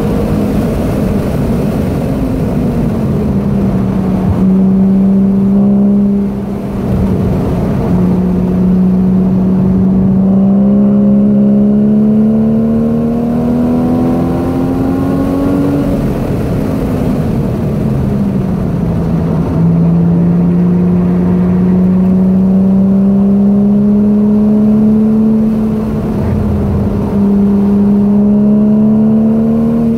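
Porsche 981 Boxster S's 3.4-litre flat-six heard from inside the cabin at track speed. The engine note climbs slowly as the car pulls, then falls back twice: about three seconds in and again about seventeen seconds in.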